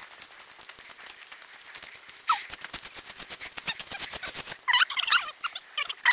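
A fast rattle of clicks lasting a few seconds, then a string of loud, sharp animal calls starting about three-quarters of the way in.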